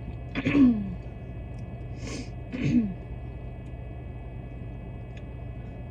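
A woman sneezing twice, a second or two apart.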